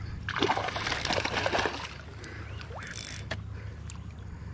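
River water splashing and sloshing around a wading angler, strongest for the first second or two and then quieter, over a steady low rumble.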